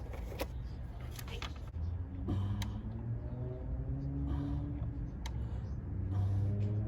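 A motor vehicle engine with a low rumble, rising steadily in pitch as it revs up, twice.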